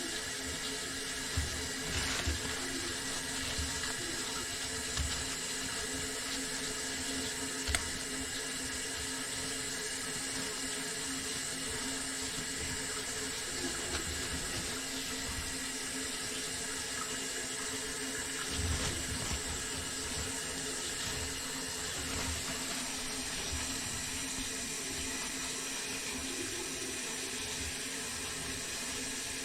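Sink faucet running steadily into the basin, with a few short knocks in the first several seconds.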